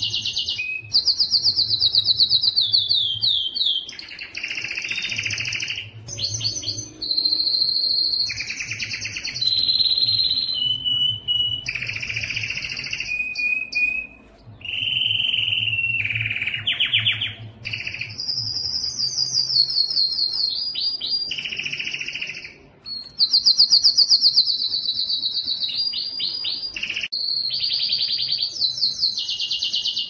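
Domestic canary singing a continuous song of fast trills and rolls, many sliding downward in pitch, alternating with buzzier lower phrases. The song pauses only briefly twice.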